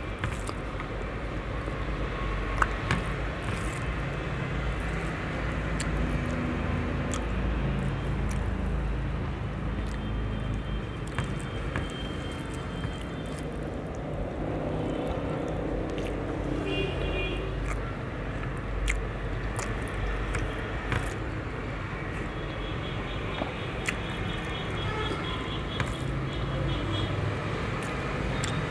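Eating with the hand from a steel plate: fingers mixing rice and curry against the metal and chewing, heard as scattered small clicks and smacks over a steady low rumble.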